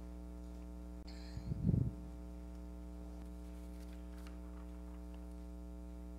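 Steady electrical mains hum on the sound system, with one brief low sound about a second and a half in.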